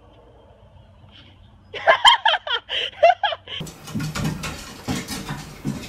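A person laughing in quick, high-pitched bursts. After about three and a half seconds the laughter stops abruptly, and a noisier stretch full of small clicks follows.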